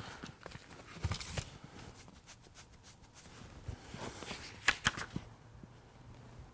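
Quiet handling noise: clothing rustling and small scattered clicks as hands work at a clipboard and a belt, with brief scuffs about a second in and just before five seconds.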